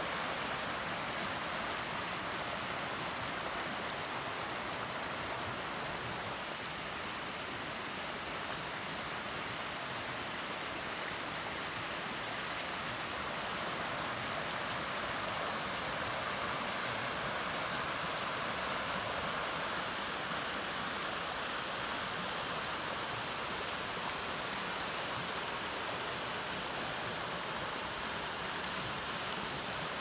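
Mountain brook swollen with snowmelt, rushing steadily over rocks in white water.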